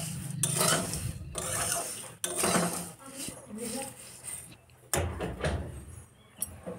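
A metal spatula scraping and stirring flattened rice (chuda) in a metal kadai, in irregular strokes with short pauses between them.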